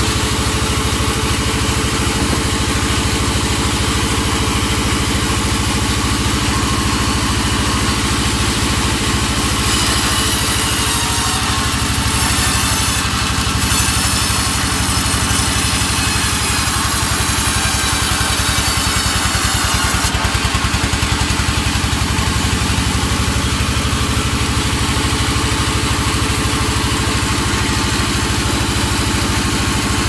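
Vertical band sawmill running steadily, with its blade cutting through an albasia log from about ten seconds in until about twenty seconds in, adding a high hiss over the machine's hum.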